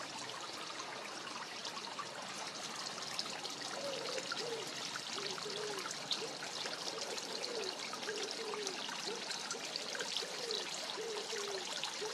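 Steady trickling, water-like rushing noise, with a run of short, low warbling calls repeated about twice a second from about four seconds in until near the end.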